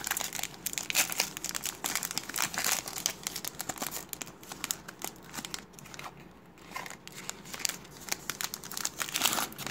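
Foil wrapper of a Topps trading-card pack crinkling and tearing as it is opened by hand, in a rapid irregular crackle with a brief lull a little past halfway.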